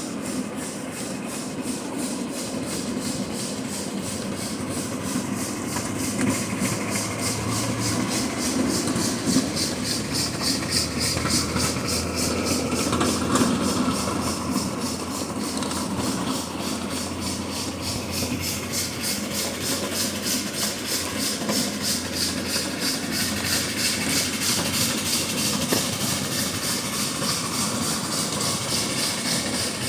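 Live-steam scale Erie steam locomotive running, with a quick, even exhaust beat and hiss over a low rumble.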